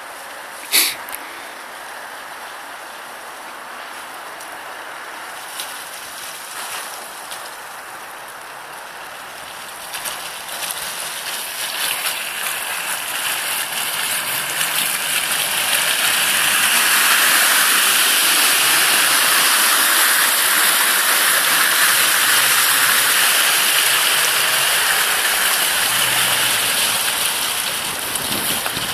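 Mitsubishi Pajero driving through slushy, water-filled ruts, its tyres splashing and churning through mud and meltwater, growing louder as it comes close and passes, with its engine running low underneath. A single sharp knock about a second in.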